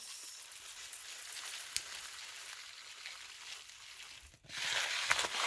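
Food sizzling in a hot pan, a steady hiss. There is a light click about two seconds in, and the sizzle breaks off briefly before coming back louder near the end.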